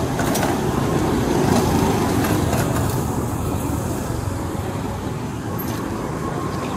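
Road traffic noise: a steady rumble of passing vehicles that swells about a second in and then eases off a little.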